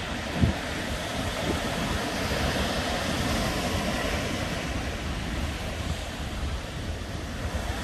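Ocean surf breaking on a beach, a steady wash of waves, with wind buffeting the microphone. A brief low thump comes about half a second in.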